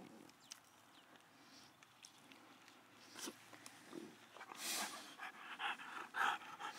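French bulldog panting quickly and noisily, faint at first and then plain from about the middle on, at about three breaths a second. It is the laboured breathing of a brachycephalic dog, which the examiners take as a clear sign of obstructed breathing (brachycephalic airway syndrome).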